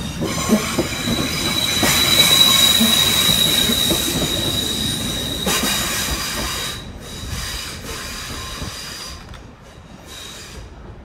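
Class 444 Siemens Desiro electric train pulling out of the station. It gives a high, steady squeal with hiss that is loudest from about two to five seconds in, then fades away as the train leaves.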